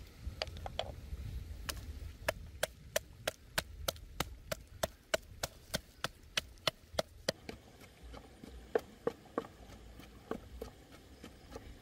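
Wooden pestle pounding chillies, garlic and salt in a deep wooden mortar: a steady run of dull wooden knocks about three a second, slowing to a few scattered strikes near the end.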